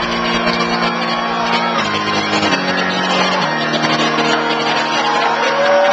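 Electronic dance music played loud over a PA, in a breakdown: sustained synth chords change pitch every second or so, and the deep bass drops out as it begins. A crowd's noise and occasional whoops run underneath.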